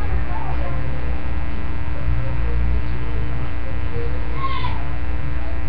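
Loud, steady electrical mains hum with a stack of even overtones, with faint voices underneath.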